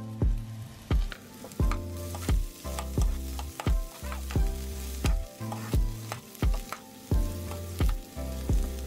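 Onions, garlic and fresh coriander sizzling in hot oil in a pan while being stirred with a spatula, over background music with a steady beat.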